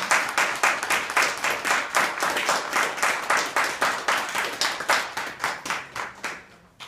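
Audience applauding with quick hand claps, several a second, dying away near the end.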